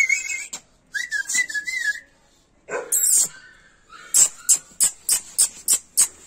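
A person's warbling whistle, then a quick run of sharp tongue clicks at about three a second, calling a Siberian husky puppy.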